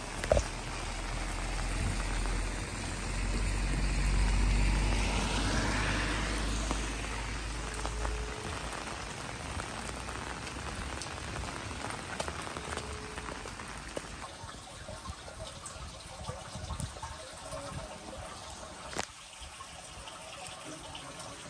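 Heavy rain falling steadily on a wet street. A low rumble runs through roughly the first eight seconds and then drops away.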